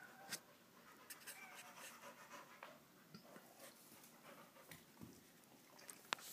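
A dog panting faintly, with scattered soft clicks and one sharp click shortly before the end.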